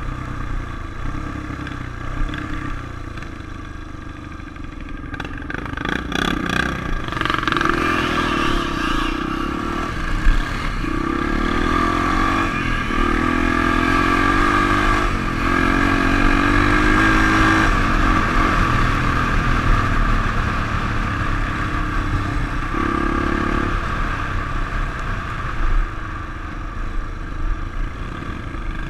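Single-cylinder four-stroke engine of a Honda XR 350 enduro bike under way, rising in pitch several times in a row as it accelerates up through the gears about a third of the way in, then settling to a steadier cruise. Wind rumble on the helmet camera runs underneath.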